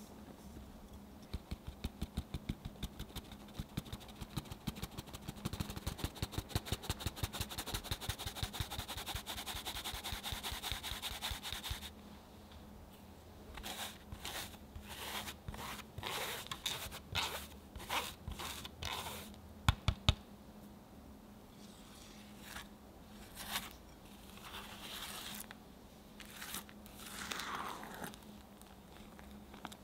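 Hand-held mesh sieve tapped quickly and evenly, about four or five taps a second, as cake flour sifts through into a glass bowl. About twelve seconds in it changes to slower, uneven shaking and scraping, with two sharp knocks about twenty seconds in. Near the end a spatula scrapes through the stiff flour-and-butter batter against the glass bowl.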